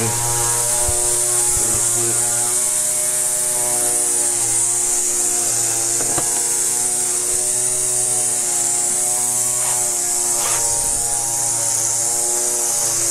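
A steady hum holding one even pitch, with a constant high hiss over it. About ten seconds in there are a couple of faint brief rising chirps.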